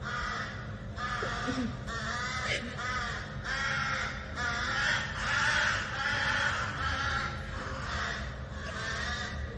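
An animal calling over and over: short, rough pitched calls about once or twice a second, running together and loudest around the middle.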